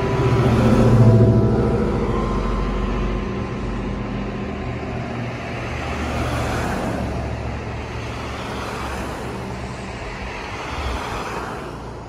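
Road traffic: vehicles passing on the street, the loudest about a second in and another around six seconds. The last hum of the church bell dies away in the first couple of seconds.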